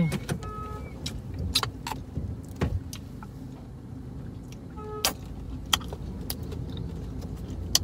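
Eating noises inside a car: scattered light clicks and taps from a plastic takeaway container and from chewing, with one heavier thump near the middle, over a low steady hum.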